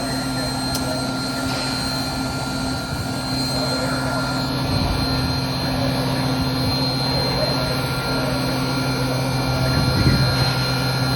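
Steady mechanical hum of running machinery, with a low drone under a noisy haze. It gets a little louder about halfway through and swells briefly near the end.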